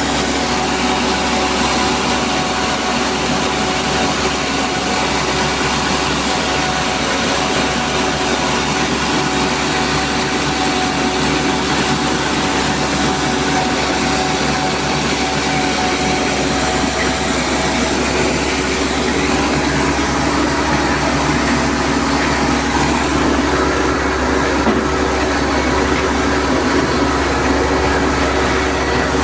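Rice milling machine running steadily: a loud, unchanging mechanical din with a steady hum of several tones over a dense rushing noise.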